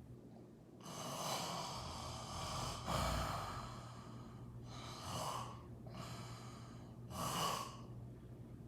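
A woman snoring in her sleep: a run of about five noisy breaths with snorts. The loudest come about three seconds in and again near the end.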